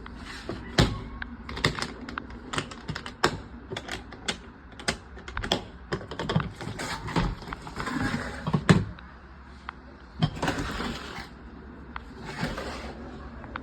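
Tools and their plastic case being handled: a quick run of sharp clicks and knocks, then a few longer rustling scrapes near the end.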